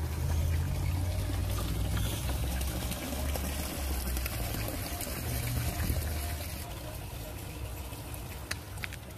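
Water splashing steadily from a concrete wall fountain into its basin, with a low rumble under it that eases after about six seconds.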